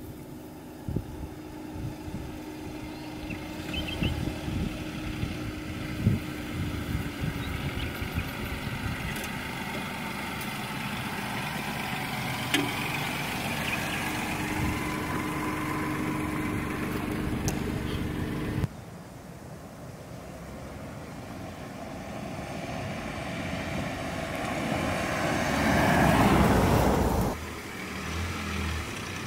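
Dacia Duster SUV with a 1.2 TCe mild-hybrid petrol engine driving slowly over a rutted dirt track: a steady engine hum with irregular clicks and knocks from the tyres and suspension. Later, a rushing engine-and-tyre noise swells to its loudest and cuts off suddenly.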